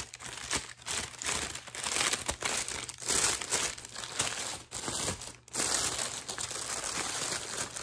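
Paper wrapping crinkling and rustling continuously as it is unwrapped by hand from around a new handbag, with brief pauses between handfuls.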